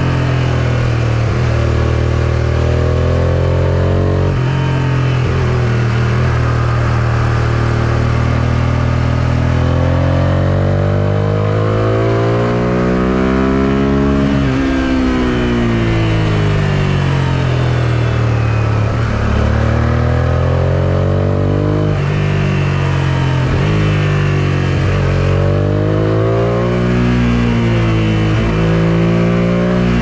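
Suzuki SV650S's 645 cc V-twin engine through an Akrapovic full exhaust, on the move, its revs climbing and dropping several times as the rider accelerates and rolls off, with a sharp drop about halfway through. Wind and road noise run underneath.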